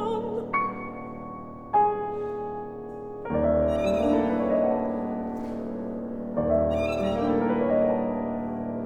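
Chamber ensemble of violin, bassoon and piano playing an instrumental passage after the soprano's line ends: a held note, a sharply struck piano chord about two seconds in, then fuller chords with a deep bass entering around three seconds and again around six.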